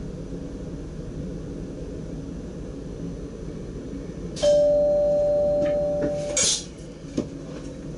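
A cab signal in a DDZ double-deck train chimes once: a steady bell-like tone held for about two seconds, fading slightly, over the standing train's hum. A sharp click and a short knock follow.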